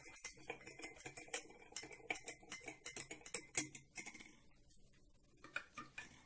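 A spoon clinking against the inside of a drinking glass while stirring dyed water: a quick, uneven run of light ticks that dies away about four seconds in and starts again near the end.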